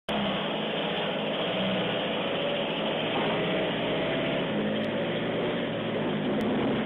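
Van engine running as the van drives up onto a driveway and pulls to a stop, a steady, loud engine sound.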